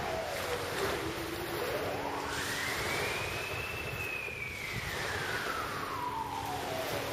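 Steady rushing noise of surf and wind. Over it a single whistle-like tone glides down, then sweeps up over about a second to a high pitch and slowly falls again.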